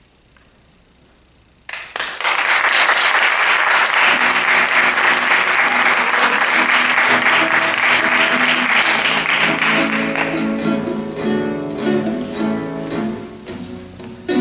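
Audience applause breaks out suddenly about two seconds in and fades after about ten seconds, while music comes in underneath from about four seconds and takes over near the end.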